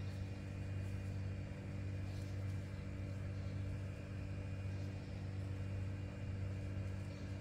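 Steady low mechanical hum, like a motor or appliance running without change.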